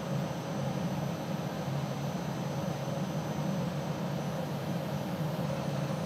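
Steady whirring hum of a running minicomputer installation: cooling fans and the spinning disk drive of a DEC PDP-11/70 during boot, with a faint high steady whine above it.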